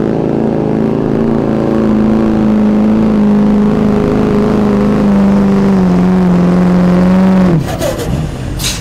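Diesel pickup truck engine under full load pulling a weighted sled, running at a steady high pitch that sags slightly, then drops away suddenly about seven and a half seconds in. A short hiss follows near the end.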